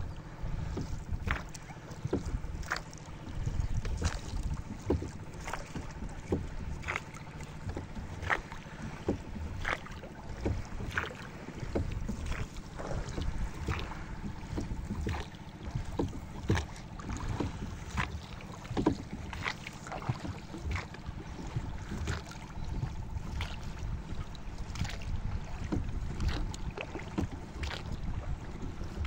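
Wooden oars of a small rowboat being worked steadily, giving a regular short knock and splash about every second and a half. Low wind rumble on the microphone runs underneath.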